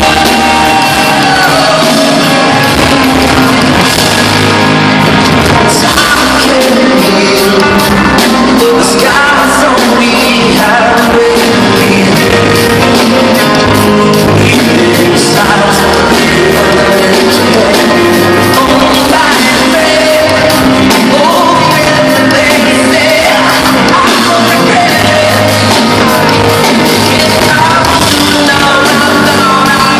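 Live rock band playing loud, with a male lead singer belting over distorted electric guitar and drums, heard from the audience.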